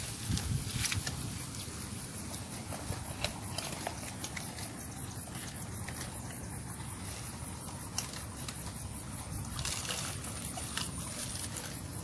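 Insects chirring high and thin, pulsing at an even quick rate, over a low rumble, with a few faint sharp clicks.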